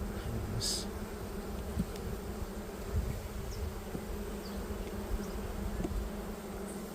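Honeybees buzzing in a steady hum over an opened hive, the colony stirred up by a frame inspection. A brief hiss sounds about half a second in.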